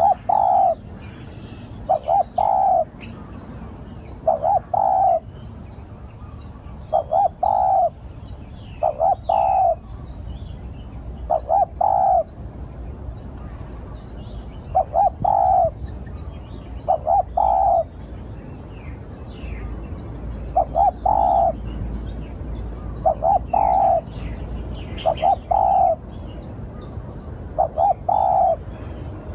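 Spotted dove cooing: a short phrase of two or three low coos, repeated about every two to three seconds, with faint high chirps in between.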